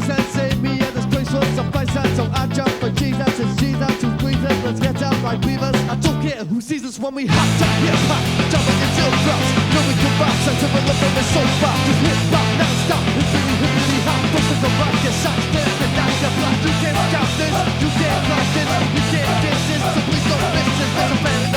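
Soundtrack music with a steady beat. It breaks off briefly about seven seconds in, then comes back fuller and a little louder.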